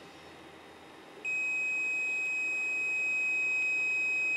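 Fujikura FSM-60S fusion splicer sounding one long, steady, high-pitched beep that starts about a second in. The beep signals that its heat-shrink oven has finished heating the splice protection sleeve.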